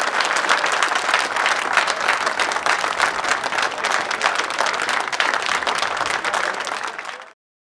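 Crowd applauding, a dense steady clapping that thins out and then cuts off abruptly near the end.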